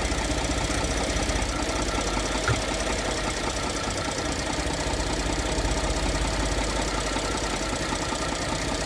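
Ford 3.5 EcoBoost twin-turbo V6 idling warm with a steady knock, which the owner traces to where the crankcase meets the transmission. A single click about two and a half seconds in.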